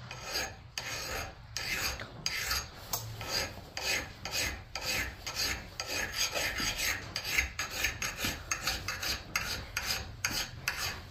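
Flat file drawn across the steel bit of a Collens double-bit axe in repeated light strokes, sharpening the edge.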